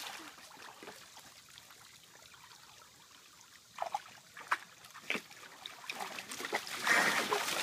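Husky puppy pawing and splashing the water in a plastic kiddie pool: little sound at first, then a few short splashes from about four seconds in and a longer burst of splashing near the end.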